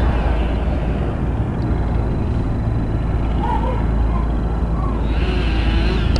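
Erickson S-64 Air-Crane firefighting helicopter in flight, heard as a steady low rumble of its rotors and engines.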